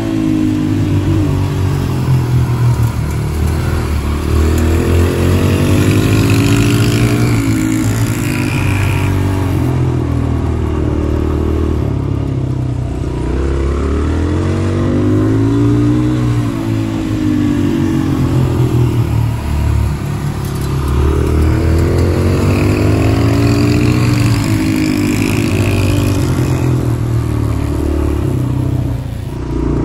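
Small pit bike engines revving up and easing off again and again, the pitch climbing and dropping every few seconds as they run laps of a tight circle track.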